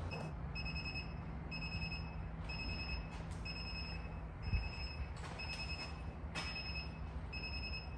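A timer alarm beeping about once a second, each beep a short, high, steady-pitched tone: the signal that the 2-hour cooking interval is up.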